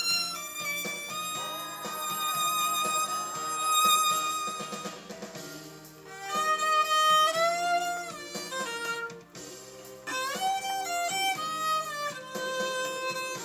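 Violin played with a mute, carrying a slow melody with some notes sliding into pitch, over a soft accompaniment.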